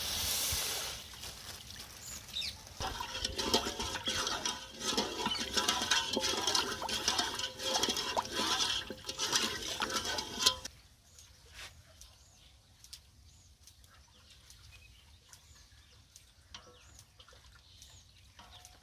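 Water sloshing and splashing as water and sugar are mixed for gola syrup, busy and irregular for about ten seconds, then stopping abruptly; only faint ticks follow.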